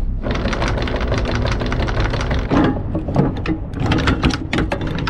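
Anchor chain clattering as the anchor is hauled in over the bow: a fast, even run of metallic clicks that breaks into separate clanks about halfway through, over the low drone of the boat's engine.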